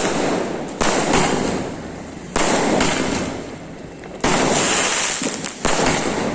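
Ruby Fireworks 60-shot multishot sky shot cake firing: sharp bangs about every second, several in quick pairs, each followed by a dense hiss that fades away.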